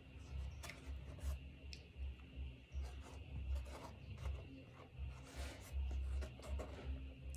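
Metal spoon scraping and clicking against a foam takeaway box while scooping up cake, with a longer scrape about five and a half seconds in, over irregular low muffled bumps.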